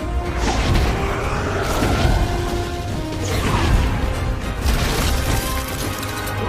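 Dramatic film score with battle sound effects layered over it, including crashing impacts.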